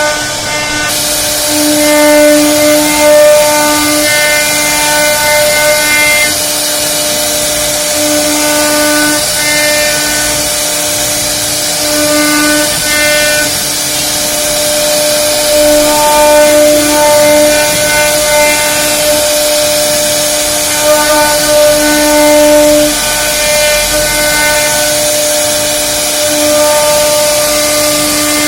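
CNC router spindle running at a steady high pitch while the bit cuts wood, the whine growing louder and softer in turns over a constant hiss of cutting.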